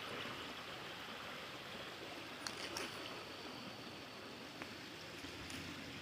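Faint, steady rush of a small stream's running water, with a few light clicks a couple of seconds in.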